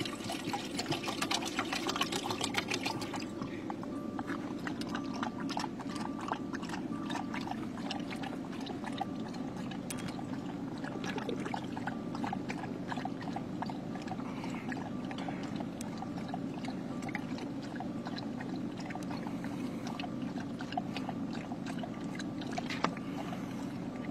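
A puppy lapping water from a bowl: a fast, steady run of small wet clicks and splashes. It is loudest and busiest in the first few seconds, while water is still splashing into the bowl. A steady low hum runs underneath.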